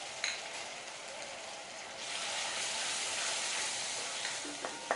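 Fried onions and ginger-garlic paste sizzling in hot oil in a pan, the sizzle growing louder about two seconds in. A few clicks of a spoon against the pan near the end.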